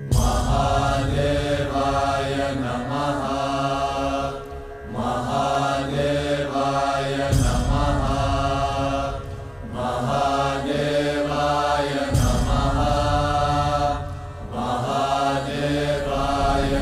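Devotional music: a mantra chanted in repeated phrases about every two and a half seconds, over a heavy low bass.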